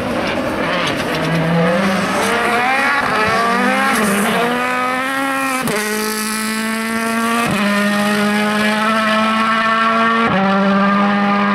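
Hyundai i20 Coupe WRC rally car's turbocharged four-cylinder engine at full throttle as it passes, climbing in pitch, then three sharp cuts as it changes gear.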